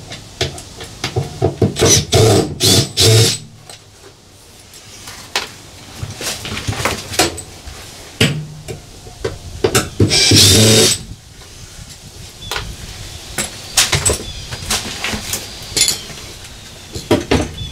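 Cordless drill-driver backing out an inverter's bottom mounting screws in several short bursts, the longest about a second long around ten seconds in, amid knocks and clatter of tools against the metal bay.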